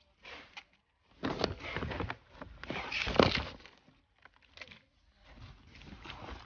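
Handling noise of hands working with plant cuttings: irregular rustles and scrapes in short clusters, the loudest a little past the middle.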